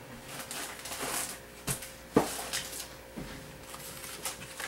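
Packaging being handled at a kitchen table: rustling of a plastic bag early on, then two or three sharp knocks around the middle.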